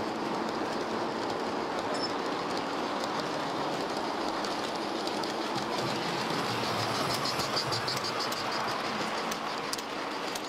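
S-scale model freight train rolling past at close range: a steady rolling noise of cars on the track, with light clicks of the wheels over the rail joints.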